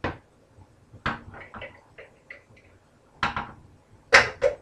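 Cookware clattering on a stovetop: a string of irregular knocks and clinks, the loudest two close together near the end.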